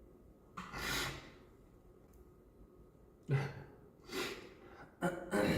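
A man's short, sharp breaths through the nose and mouth, four in all, about half a second in and then at three, four and five seconds. Some carry a little voice.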